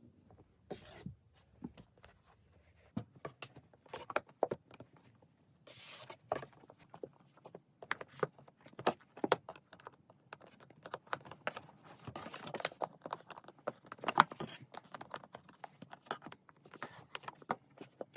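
Paperback manga volumes being worked out of a tight cardboard box set by hand: irregular scrapes of books sliding against cardboard, with light knocks and handling taps.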